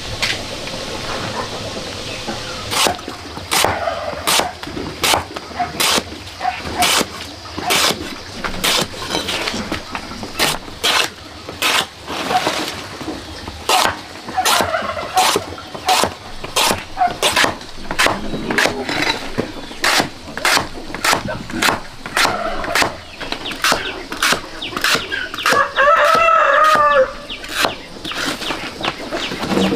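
A heavy cleaver chopping through a banana plant's stem onto a wooden block, a steady run of sharp strokes about one and a half a second. A rooster crows once near the end, and chickens cluck in between the strokes.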